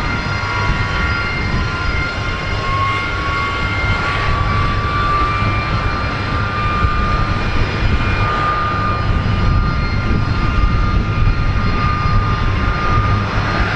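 Military jet engines running at low, taxiing power: a steady deep rumble under a high whine that rises slowly in pitch.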